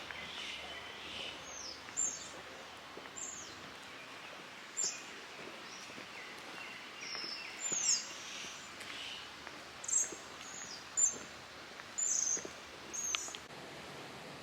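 Small birds giving short, high, down-slurred chirps, about a dozen spread irregularly through the stretch, over a steady outdoor background hiss.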